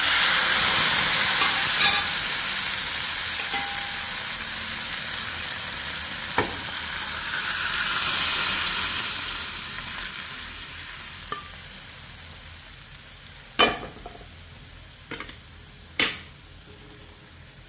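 Cooked moong dal hits hot oil tadka in a kadhai and sizzles loudly at once. The sizzle swells again as more dal is poured, then dies down to a low simmer. A few sharp knocks come near the end.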